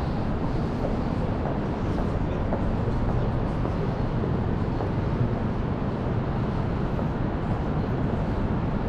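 Steady city street noise: car traffic on a busy road, with a continuous low rumble and no sharp events.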